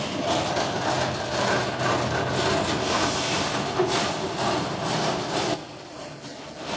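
Steady machinery din with a low hum and scattered clattering knocks. It drops away sharply about five and a half seconds in.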